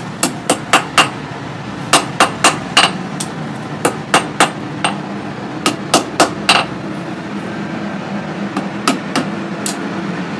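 Hand hammer striking red-hot leaf-spring steel on a steel post anvil while forging a five-pronged spear head. The blows come in quick bursts of three to five, about four a second, with short pauses between bursts. Near the end the blows are fewer and fainter.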